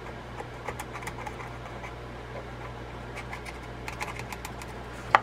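A small tool scraping and picking dried grease out of a vintage reel's anti-reverse dog, making scattered light clicks and scratches, with one sharper click just before the end.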